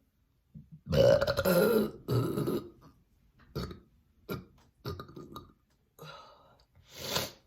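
A person burping on command: a long, loud burp about a second in, another straight after it, then a few short, quieter sounds.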